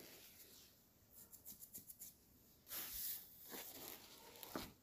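Near silence, with faint rustling and a few soft taps as someone moves about close to the microphone.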